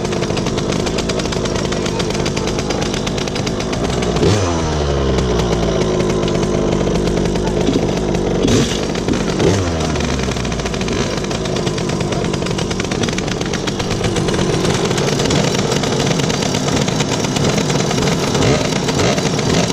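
Polini minimotard's air-cooled 70 cc two-stroke engine idling steadily, blipped twice, about four and nine seconds in, each rev falling back to idle.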